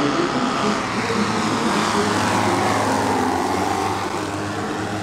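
Radio-controlled model aircraft flying past, its engine note falling in pitch as it goes by about halfway through, over a steady low hum.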